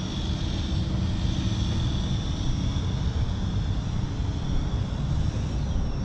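Quadcopter drone propellers whirring in flight: a steady high whine over a dense low rumble.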